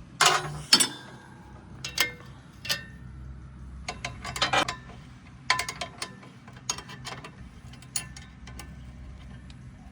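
Spanners clinking and ratcheting on the 14 mm nut of a tractor exhaust silencer as it is loosened: a series of irregular sharp metallic clicks, a few to a second, with a faint low hum underneath.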